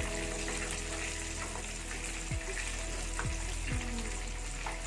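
Flour-coated Bombay duck (ikan lumek) pieces deep-frying in hot oil with a steady sizzle, under background music.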